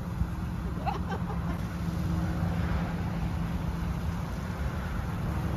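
Steady low outdoor rumble of background noise, with a faint voice about a second in.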